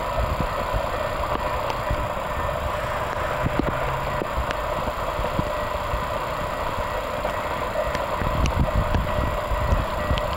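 Steady outdoor background noise with a faint steady hum, and an uneven low rumble of wind on the microphone.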